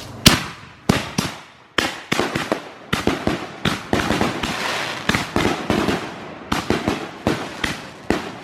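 A finale chain of 18 fused aerial firework shells going off: a loud first bang, then a rapid run of sharp launch thumps and bursts, several a second.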